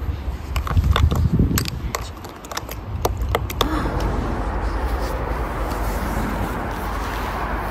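A metal spoon clinking and scraping in a glass of shaved ice as the halo-halo is stirred: a quick run of sharp clicks for about three and a half seconds. Then a steady rushing noise takes over.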